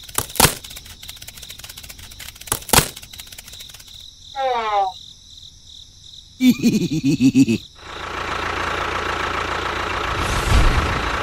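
Two sharp clicks, a short falling tone and a brief pulsing pitched sound, then, from about eight seconds in, a small DC hobby motor running with a steady buzz.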